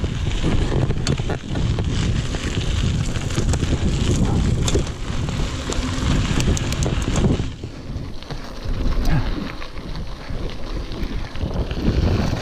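Wind buffeting the microphone as a mountain bike rolls fast along a dirt trail, mixed with the tyres on the dirt and the bike rattling; scattered sharp clicks and knocks, thickest about six to seven seconds in.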